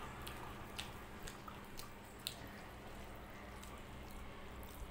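Fingers mixing rice with runny mung dal on a plate: faint wet squishes and small sticky clicks, about one every half second in the first half, over a low steady hum.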